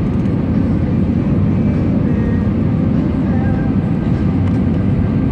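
Steady cabin noise inside an Airbus A320neo descending on approach with flaps extended: a loud, even low rush of airflow and engine hum.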